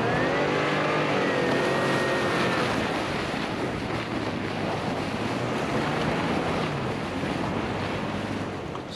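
A vehicle being driven, its engine note climbing in the first moment and then holding steady, over a constant rush of road and wind noise; the engine tone fades after a few seconds and the road noise carries on.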